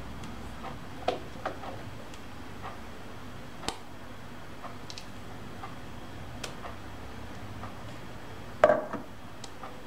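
Spatula and mixing bowl clicking and tapping as thick cheesecake filling is scraped out into a cake tin: scattered light taps, with a louder pair of knocks near the end, over a low steady hum.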